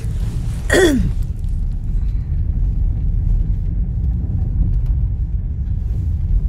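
Steady low rumble of a car driving slowly, heard from inside the cabin. About a second in there is a short sound that falls in pitch.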